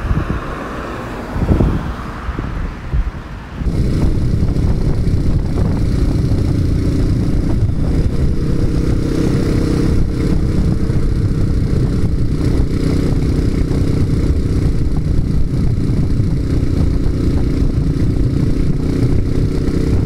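Motorcycle engine running steadily at road speed, with loud wind noise on the helmet camera's microphone in strong crosswinds. For the first few seconds, before the riding starts, there are only uneven gusts of wind.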